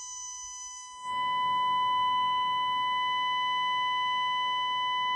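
Steady test tone with a little hiss from the small speaker of a Tecsun 2P3 AM radio kit, which is receiving a signal generator's 455 kHz test signal while its IF transformers are being aligned. The tone comes up sharply about a second in, as the yellow IF transformer is turned, then holds level.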